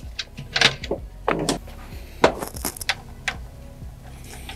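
Hydraulic roller lifter assemblies in their trays being set into the lifter bores of a 5.7 Hemi engine block: a series of irregular metallic clicks and clinks, the sharpest about halfway through.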